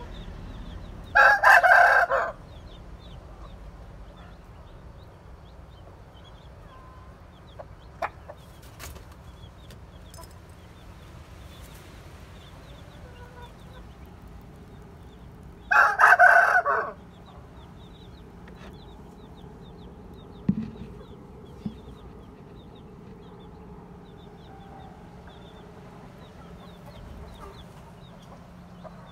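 A rooster crows loudly twice, each crow about a second long and the two about fourteen seconds apart, over faint high chirping in the background.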